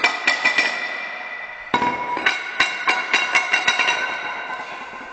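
Iron weight plates clanking and ringing as they are picked up and stacked back onto a farmer's walk handle: a run of sharp metal knocks, each leaving a ringing tone. The knocks pause briefly about a second in, then come in a quicker series.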